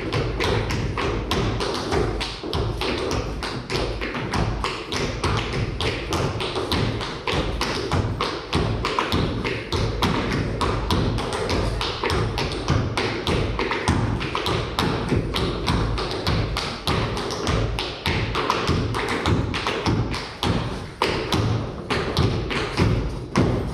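Appalachian clogging: two dancers' shoes beating fast, rhythmic taps and stamps on a wooden stage floor.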